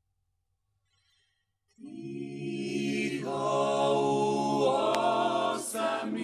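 Small vocal group singing a hymn in close harmony, coming in after about two seconds of silence and holding long chords.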